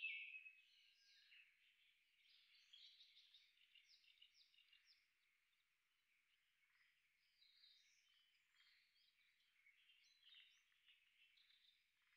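Faint birdsong from small birds chirping and trilling in woodland, with a louder phrase that fades about a second in.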